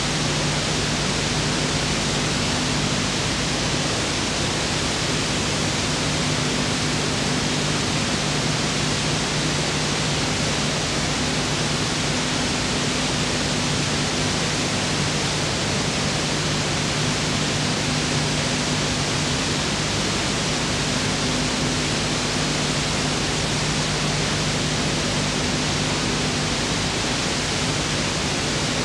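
Steady loud hiss with a low electrical hum underneath and no other sound: the noise floor of an old video transfer of silent film footage.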